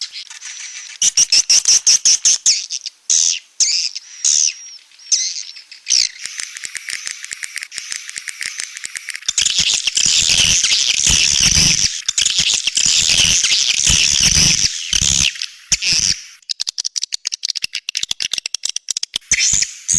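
Edible-nest swiftlets calling, the 'outside' lure call used on swiftlet houses: dense high twittering chirps mixed with sharp clicks. The chirping is most continuous from about nine to fifteen seconds in, then gives way to a fast run of clicks.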